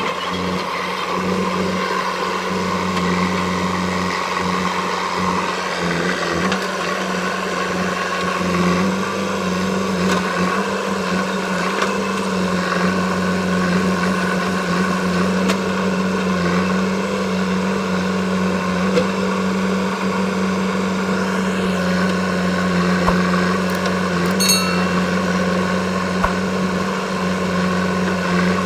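JCB 3DX backhoe loader's diesel engine running steadily with a constant hum as the machine pushes mud with its front loader bucket. A brief metallic ping comes near the end.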